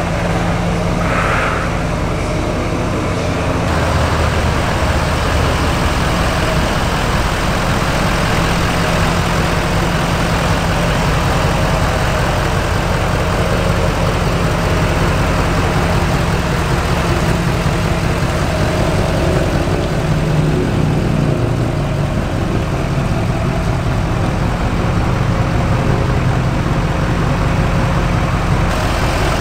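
Lifted diesel pickup truck's engine running steadily.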